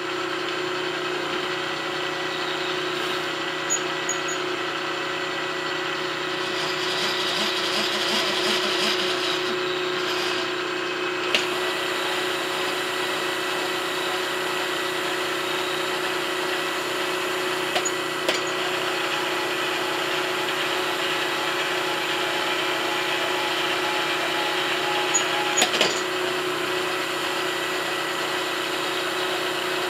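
A 3/4-inch high-speed-steel end mill on a milling machine side-cutting an aluminium block: a steady cutting noise over the spindle's steady hum, a little louder and brighter around seven to ten seconds in, with a few sharp ticks.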